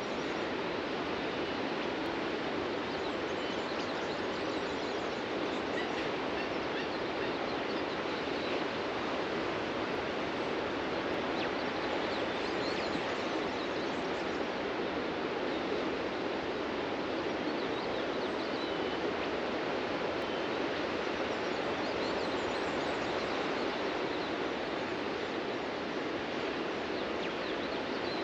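Ocean surf breaking on a beach as a steady, even wash of noise, with faint bird chirps here and there.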